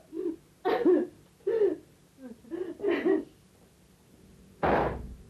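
About five short vocal sounds in the first three seconds, not words, then one short harsh burst about three-quarters of the way through.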